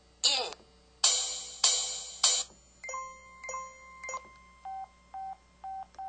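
IM-U130 mobile phone playing its built-in sound-effect samples through its speaker: a short key-tone sample with falling pitch, then three louder noisy bursts, then a run of electronic beeps stepping between pitches. It ends with four short identical beeps, the menu-navigation tones.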